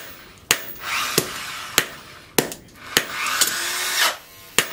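Hand hammer forging a red-hot leaf-spring steel blade on a steel post anvil: about seven sharp blows, roughly one every half second, with a pause near the end. Between the blows, a rushing noise swells up twice, each time for about a second.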